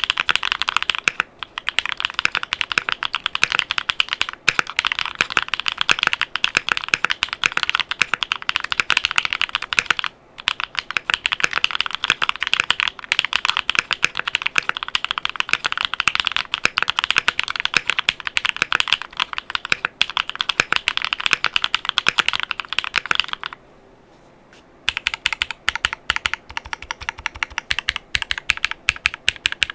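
Mechanical keyboard typing: Qwertykeys Neo65 Cu with Duhuk Lumia Bitter Tea V2 63.5 g tactile switches on a carbon fibre plate, under double-shot ABS Cherry-profile keycaps. Fast, continuous keystrokes with a few short breaks and a pause of about a second near the end, after which the typing goes on a little softer.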